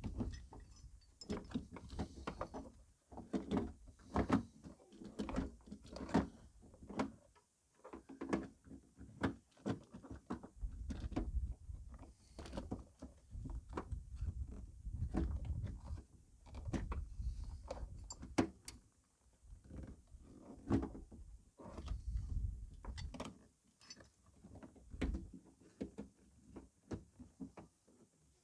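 Irregular knocks, clicks and rattles of a part being worked loose by hand inside a car's rear interior, with trim and metal bumping against each other.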